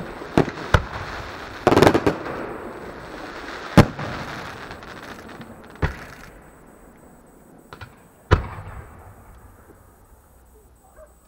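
Fireworks going off: a dense crackling volley about two seconds in, then single sharp bangs a couple of seconds apart that thin out and die away towards the end.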